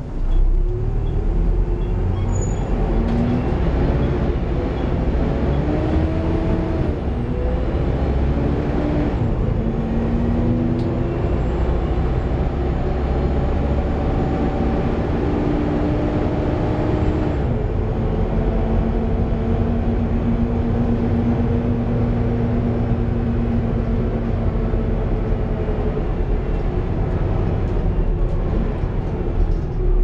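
Volvo B7TL double-decker bus heard from on board while driving: its engine and drivetrain note rises in pitch several times in steps over a steady low rumble, then holds an even pitch through the second half.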